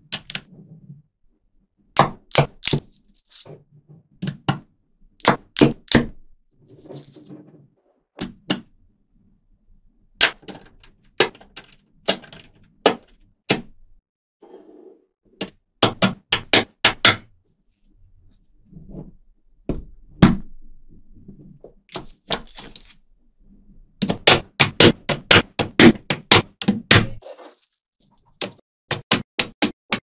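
Small neodymium magnet balls clicking sharply against one another as blocks of them are handled and snapped together, in quick runs of several clicks with short pauses between, and quieter rubbing between the runs.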